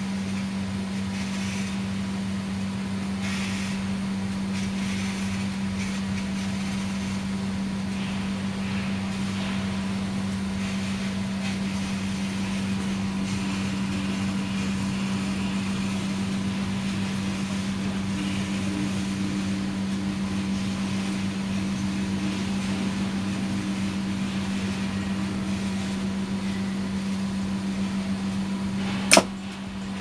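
Steady low electrical hum from the energized test bench. About 29 s in comes a single sharp click: the Danfoss MP-type oil differential pressure switch tripping at the end of its time delay, because the oil-to-suction pressure differential has fallen below its setting.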